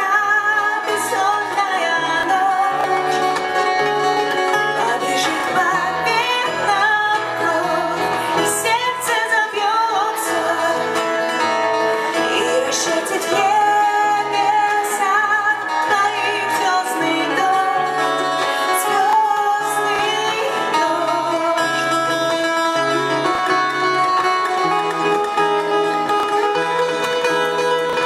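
Live band playing a loud, continuous passage: plucked guitar over a moving bass line, with a wavering melodic lead line on top.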